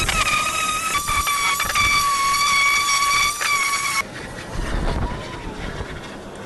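Electric sanders running on wood: a palm sheet sander, then a random orbital sander. Each gives a steady high whine that cuts off suddenly about four seconds in, leaving faint wind-like noise.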